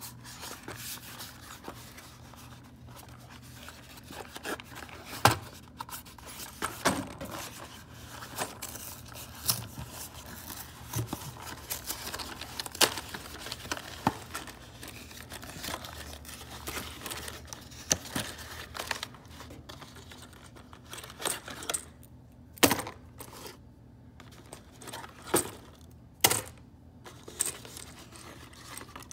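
Small cardboard ammunition boxes being handled and one torn open: rustling and tearing of cardboard, with frequent sharp knocks and clicks as the boxes are moved.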